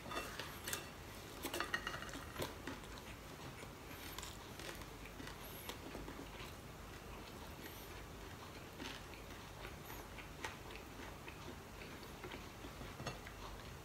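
Faint eating sounds of a meal taken by hand: scattered light clicks and taps of fingers and dried fish on a ceramic plate, with a brief cluster of them a second or two in, and chewing.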